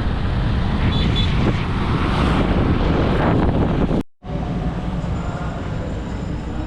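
Steady vehicle and road noise heard while riding, with wind buffeting the microphone; the sound cuts out abruptly for a moment about four seconds in, then carries on.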